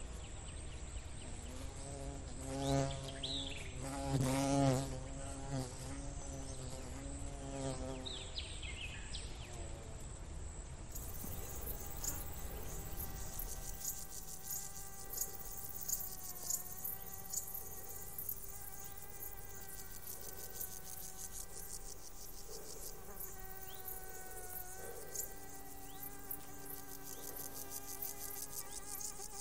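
Insects buzzing: a pitched buzz that wavers up and down for the first several seconds, then from about a third of the way in a dense, high chirring of rapid ticks, with a few steady held tones underneath.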